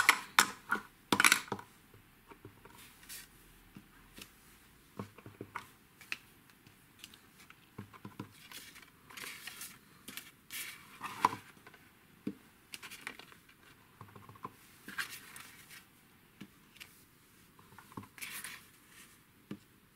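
Stamping noises: a clear acrylic stamp block tapped onto an ink pad and pressed onto cardstock, with paper being handled. Scattered short clicks and taps, the sharpest in the first second or so, and a few brief scrapes.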